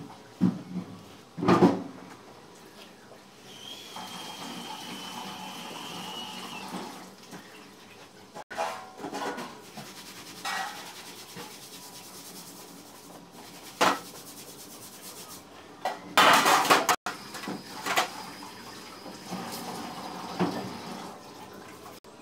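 Kitchen clatter: scattered knocks and clanks of pans and utensils over a steady background noise, with a dense run of clanks about two-thirds of the way through.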